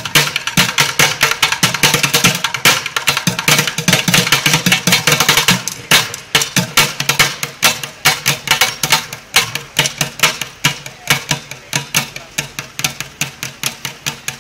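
Bucket drumming: drumsticks beating fast rhythms on upturned white plastic buckets. The strokes come in dense rolls for about the first six seconds, then drop back to a lighter, more spaced beat.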